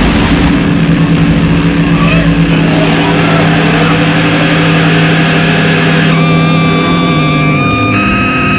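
Loud droning music of long held low notes, with a high sustained note and its overtones coming in about six seconds in.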